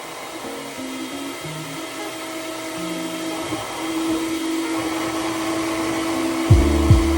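Kitchen blender running while making a smoothie: a motor hum that builds steadily in loudness, then about six and a half seconds in a much louder low rumble with a couple of sharp knocks as the contents are churned.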